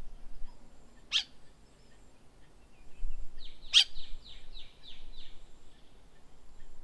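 A songbird calling: a sharp high note about a second in, another louder one just before the middle, then a quick run of about six short downward-sliding notes.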